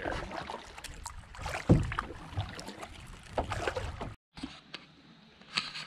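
Kayak paddling on a shallow creek: irregular paddle splashes and knocks against the hull over moving water, the loudest knock about two seconds in. The sound cuts off abruptly about four seconds in, leaving only faint water noise.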